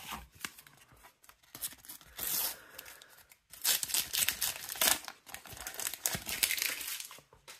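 Sticker packets being torn open by hand, with the wrappers crinkling and rustling in several bursts; the longest and loudest stretch runs from about three and a half seconds in to near the end.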